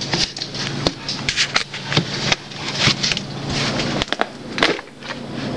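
Irregular clicks, knocks and rattles of a plastic peanut butter tub being handled on a kitchen counter, over a faint steady hum.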